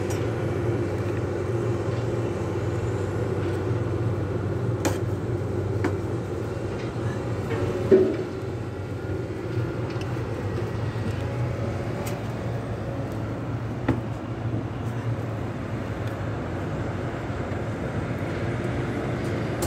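A steady low mechanical hum, with a few sharp knocks and clicks, the loudest about eight seconds in.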